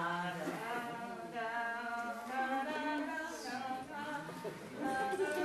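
Unaccompanied singing voices holding drawn-out notes.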